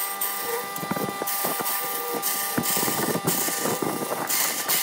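Wood lathe turning a bamboo-chopstick and epoxy blank while a gouge cuts into it: a continuous hissing, scraping cut with shavings coming off. A steady thin hum from the lathe runs underneath.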